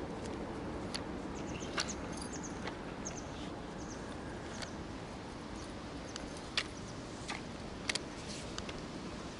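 Outdoor ambience: a steady hiss with irregular sharp clicks and a few faint, short, high chirps.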